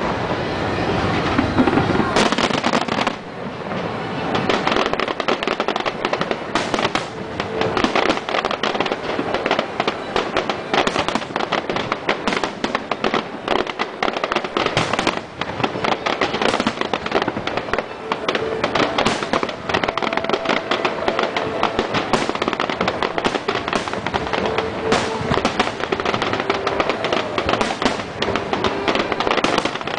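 Aerial firework shells bursting in a rapid, overlapping barrage of booms and crackles with hardly a gap, typical of a fireworks grand finale.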